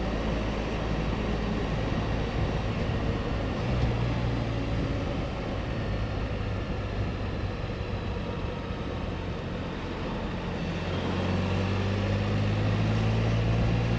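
Motorcycle engine running steadily while riding, with wind and road rush over it; the engine grows louder in the last few seconds.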